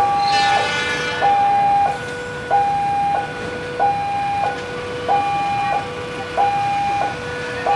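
Level-crossing warning alarm from the pole-mounted loudspeaker: an electronic two-tone signal alternating a higher and a lower note, each held a little over half a second, sounding because a train is approaching the crossing. A brief, brighter many-toned sound rings out and fades within the first second.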